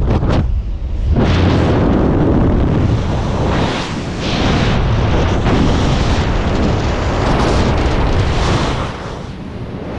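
Freefall wind rushing and buffeting over the camera's microphone, loud and unbroken. It dips briefly in the first second as the skydiver leaves the plane's door, then swells to the full rush.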